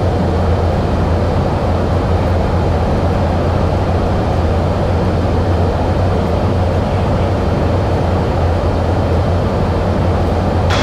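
Steady in-flight noise inside a refuelling tanker aircraft: an even rushing drone with a strong low hum.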